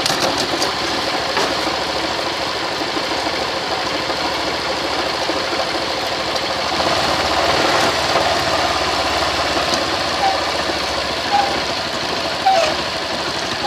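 Motorcycle engine running in first gear against the held rear brake, loading the chain drive, and pulling a little harder for a few seconds in the middle. No knock comes from the chain and sprockets: the more-stretched master link has cured the noise that a too-tight link caused.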